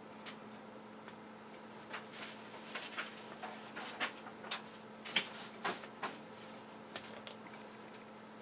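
Scattered light clicks and knocks at an irregular pace, most of them in the middle of the stretch, over a steady low electrical hum.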